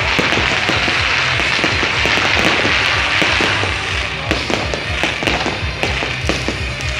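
Aerial fireworks bursting and crackling overhead in a rapid, dense run of sharp pops and bangs. Under them plays loud music with a steady bass beat.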